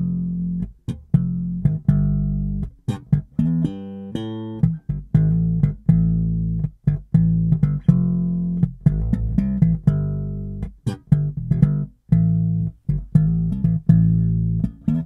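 Recorded music with deep plucked bass notes and guitar, played back through a car audio system running only its pair of 4-inch dash-mounted drivers as full-range speakers, heard inside the car.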